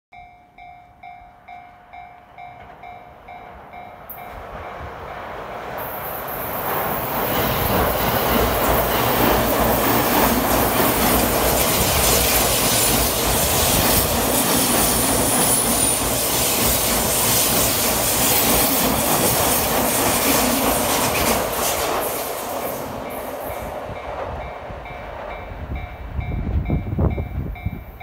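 A level-crossing warning bell rings in an evenly repeating ding. From about four seconds in, an E231 series 15-car electric commuter train comes up and passes close by, its wheels clattering and squealing on the rails. The train drowns out the bell, and the bell is heard again as the train fades. Near the end, the low rumble of another approaching train begins to grow.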